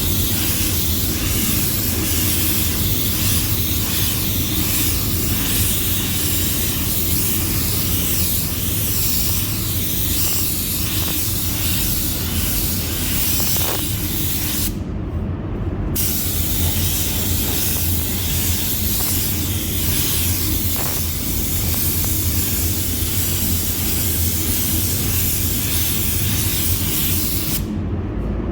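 Mini jet spray gun spraying white base coat onto a helmet: a steady hiss of air and paint, cut off for about a second around the middle and again just before the end. A steady low hum runs underneath.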